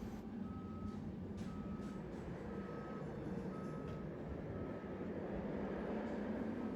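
Backup alarm on heavy equipment beeping about once a second over a steady diesel engine rumble, while a drill bit is lifted off a truck, with a sharp knock about a second and a half in.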